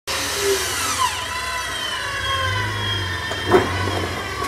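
Front-bumper winch whining under load as it pulls the Jeep up the rocks, a high whine of several tones that slowly sag in pitch, with the engine running underneath. A single sharp knock comes about three and a half seconds in.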